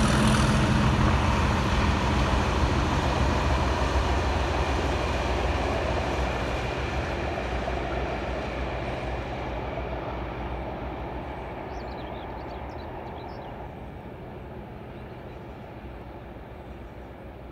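Freight train of empty hopper wagons rolling past on the rails while the diesel engine of the Class 97/3 (rebuilt Class 37) locomotive hauling them draws away. The whole sound fades steadily into the distance.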